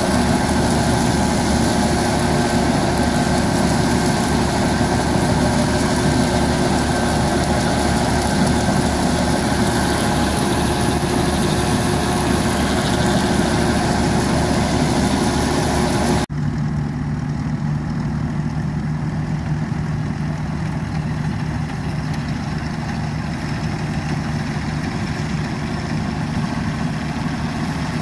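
Tractor engine running steadily while it drives a wheat straw cutter (bhusa machine) through stubble, the cutter's reel, belts and pulleys clattering close by. About 16 seconds in the sound cuts abruptly to a quieter, more distant steady engine hum.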